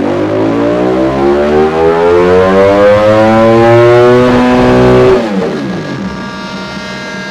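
Ducati Streetfighter V4's 1103 cc V4 engine, breathing through a Dominator exhaust with the catalyst removed, pulling hard under load with its pitch rising steadily for about five seconds. Then the throttle shuts, the pitch falls away sharply, and the sound settles into a quieter steady drone.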